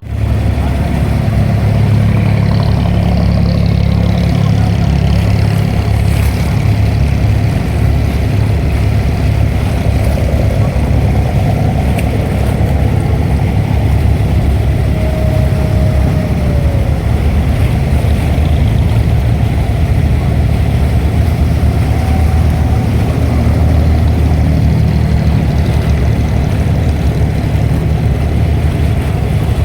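An abra water taxi's diesel engine running steadily: a loud, low drone.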